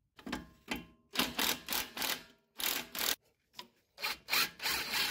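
Hand ratchet clicking in a string of short strokes as the strut's nuts and bolts are undone, ending in one longer spell of ratcheting.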